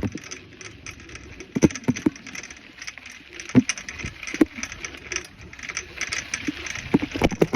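A bicycle being ridden, rattling and clattering, with irregular sharp knocks every second or so.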